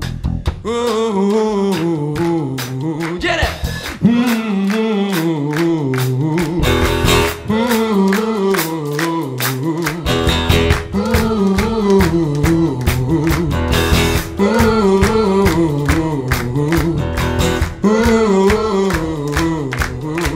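A live band of acoustic guitars, electric bass guitar and drum kit playing a rock song, with a repeating melody sung without words over it. The low end grows much heavier about halfway through.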